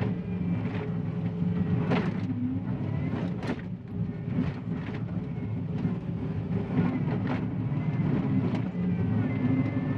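John Deere 333E compact track loader's diesel engine running steadily under load with a faint high hydraulic whine, and scattered sharp knocks and scrapes as the bucket cuts into hard clay.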